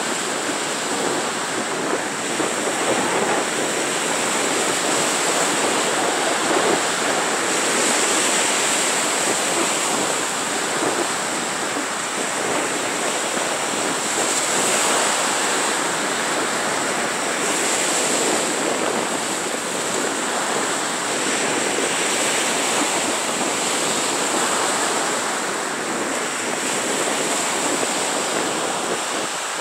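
Small sea waves breaking and washing up a sandy beach: a continuous surf hiss that swells and eases every few seconds as each wave comes in.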